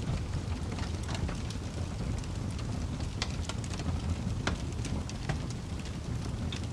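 Open fire burning: a steady low rumble of flames with scattered sharp crackles and pops, a few of them louder, about three seconds in and again past four seconds.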